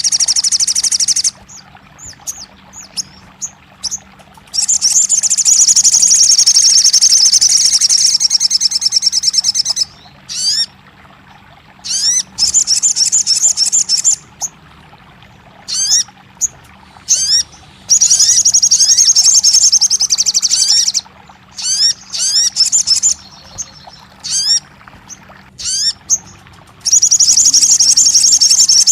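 Sogon bird song: loud bursts of rapid, high-pitched chattering, each lasting a few seconds, separated by single upward-sweeping chirps about every half second to a second. This is the recording played to coax a silent caged sogon into singing.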